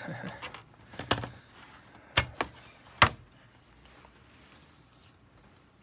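A few sharp plastic clicks and knocks, the loudest about three seconds in, as the laptop's freshly removed plastic back cover and case are handled.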